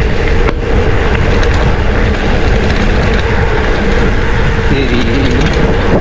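Steady wind rush on the camera microphone mixed with the rumble and rattle of a mountain bike rolling over a rough dirt road.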